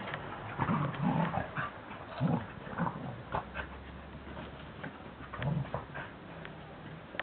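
Border collies, an adult and a puppy, growling in short, irregular bursts as they play-wrestle.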